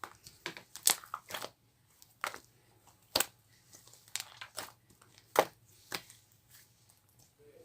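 Marbled slime being squeezed and pressed by hand, giving irregular sharp pops and crackles as air pockets burst, with about half a dozen loud pops among quieter clicks.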